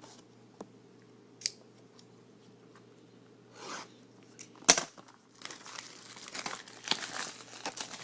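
Trading-card packs and their wrappers being handled while a hobby box is opened: a few light clicks, a short rustle, a sharp snap just before the halfway point, then steady crinkling of pack wrappers.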